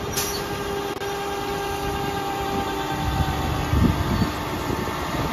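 Flatbed tow truck's winch and hydraulics running with a steady mechanical whine over a low rumble, with a few low knocks about three to four seconds in.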